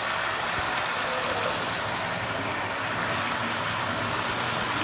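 Beef, onion and tomatoes cooking in hot oil in a karahi, giving a steady sizzle.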